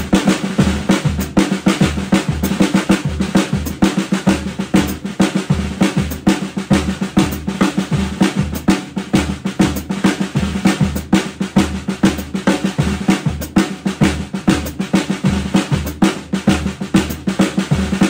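Drum kit played with sticks in a New Orleans second-line groove: a busy, syncopated snare pattern with a steady bass drum beat under it.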